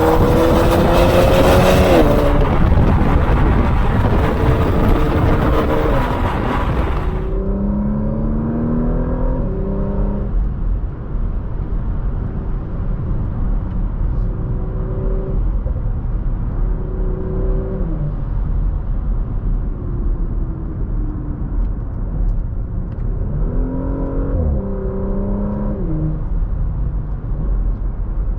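Porsche Macan Turbo's twin-turbo V6 accelerating, its pitch rising over the first couple of seconds with a loud rush of wind and road noise. After about seven seconds the sound turns duller with the high end gone, and the engine pulls up through the revs and drops back at each upshift, several times over.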